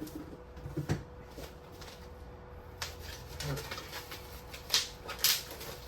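Cardboard and plastic packaging being handled and torn open as a Funko Pop mystery box is unpacked, with two sharp rips near the end.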